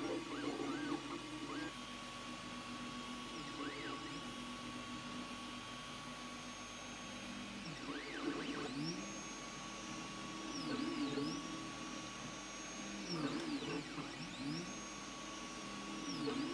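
DIY 3D printer at work: its stepper motors whine, the pitch sliding up and down as the print head speeds up and slows down between moves, over a steady hum. The moves grow busier and louder about eight seconds in and again near the end.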